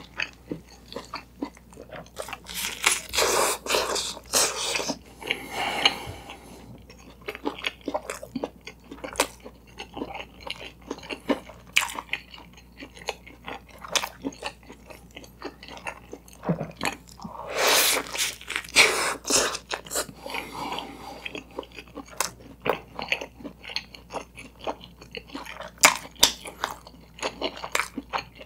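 Close-miked biting and chewing of a griddle-toasted bread slice: crisp crunches and wet mouth clicks throughout, with two longer spells of crunching about three seconds in and about eighteen seconds in.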